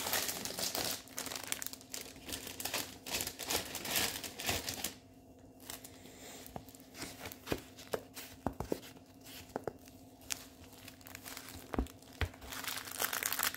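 Crinkling and rustling of a diamond painting kit's packaging and rolled canvas being handled and unrolled. It eases off for a moment about halfway through, then comes back with a few sharp clicks and busier handling near the end, over a faint steady hum.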